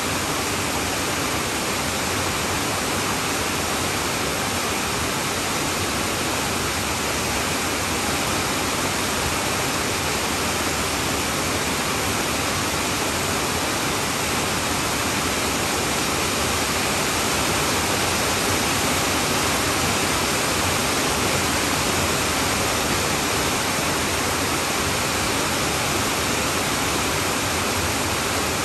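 Heavy rain falling steadily on a tin roof, a dense, even hiss of countless drops with no let-up.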